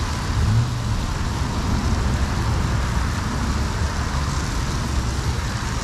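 Bacon strips sizzling on a Blackstone propane flat-top griddle, a steady hiss, over a steady low rumble.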